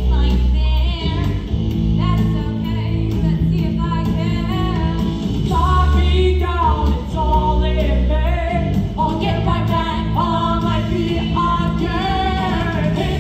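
Musical-theatre song: amplified singing over a rock accompaniment.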